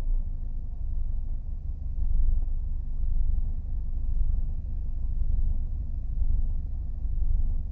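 Mercedes W210 E 220 CDI's four-cylinder common-rail diesel idling with a low rumble that swells and dips unevenly every second or two. This is the intermittent rough idle the owner is trying to diagnose.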